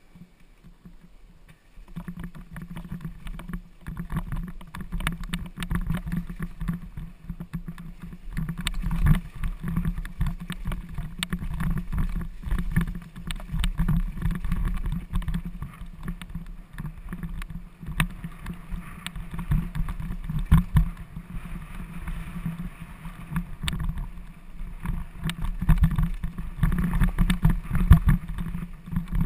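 Mountain bike riding over a rough dirt singletrack: tyres rumbling and the bike rattling, with constant irregular knocks from bumps, heard from a helmet-mounted camera. Quieter for about the first two seconds, then loud and continuous.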